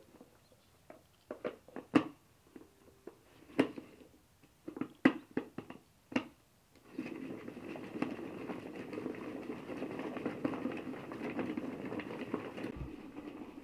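Hand-cranked plastic food chopper: a string of sharp plastic clicks and knocks as the lid and crank are fitted, then, about seven seconds in, a steady whirring rattle as the crank is turned and the blades chop raw pumpkin pieces.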